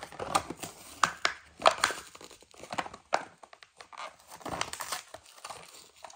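A Hot Wheels carded blister pack being torn open by hand: the cardboard backing card bending and ripping and the plastic blister crinkling, in irregular crackles and rips.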